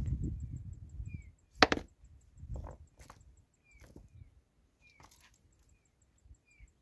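Loose stones handled and set down on bare rock while a cooking hearth is built: a sharp stone-on-stone clack about a second and a half in, the loudest sound, then a few lighter knocks and scrapes. A low rumble of handling at the start.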